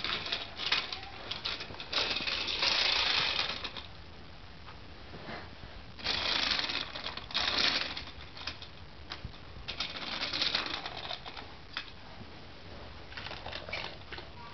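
Toy Thomas the Tank Engine pushed by hand along plastic train track, its wheels and parts rattling and clicking over the track. It comes in three bursts of a second or two, with single clicks in between.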